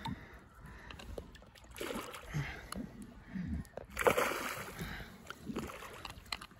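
A hooked tilapia fighting the line and thrashing at the water's surface, with a loud splash about four seconds in.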